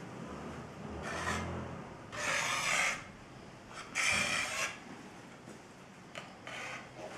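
Rubbing strokes by hand across the surface of an art panel: four separate scrapes, the two loudest about two and four seconds in, each lasting under a second.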